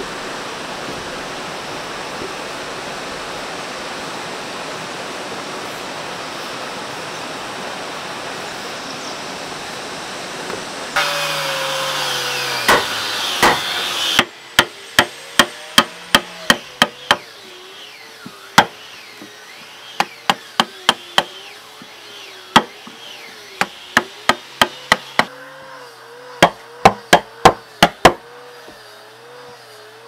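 Steady hiss of rain for about the first ten seconds, then a hammer striking over and over, some two dozen sharp blows in quick irregular runs.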